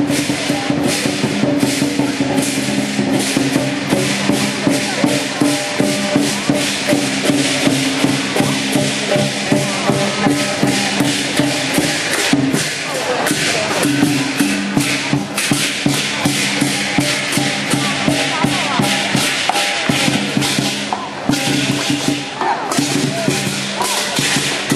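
Chinese lion dance percussion: a big drum with clashing cymbals beating a fast, even rhythm of about three to four strokes a second, over steady lower tones and crowd voices.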